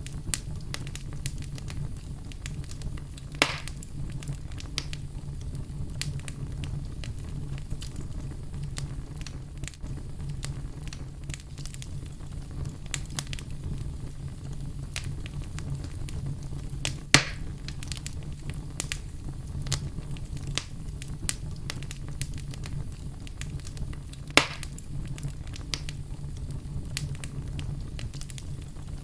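Wood fire burning in a fireplace: a steady low rumble of flames with continual small crackles and three louder, sharper pops, about three and a half, seventeen and twenty-four seconds in.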